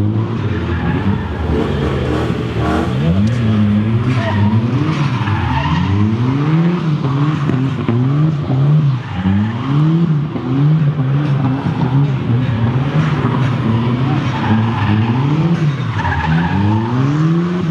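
Car engine revved hard again and again, its pitch climbing and falling about once a second, over the hiss of spinning tyres, as in a burnout.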